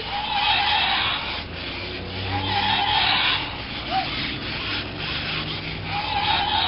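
Zoomer Dino robot toy's wheel motors running as it rolls and turns across the floor. Rubbing, scuffing noise throughout, with a motor whine that comes and goes a few times.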